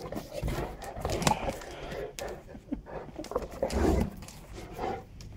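A pack of Neapolitan mastiffs fighting: irregular rough dog noises broken by a few sharp clicks, loudest about four seconds in.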